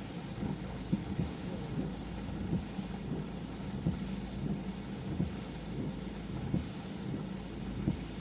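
Vehicle driving in rain: a steady low engine and road hum under a hiss, with scattered short knocks.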